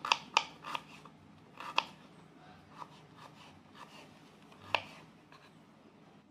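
Kitchen knife slicing shallots on a wooden cutting board: sharp, irregular taps of the blade on the board, several in quick succession in the first second, then sparser, stopping near the end.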